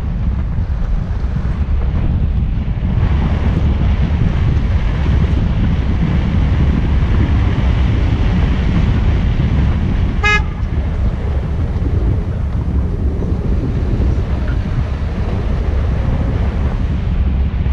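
Wind rushing over the microphone and low road rumble from a moving vehicle, with one short horn toot about ten seconds in.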